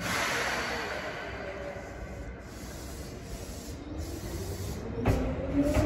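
Seibu New 2000-series electric train pulling out of the station: a sudden loud air hiss as its brakes release, fading away, then from about four seconds in the rising whine of its traction motors as it starts to move, with a wheel clack near the end.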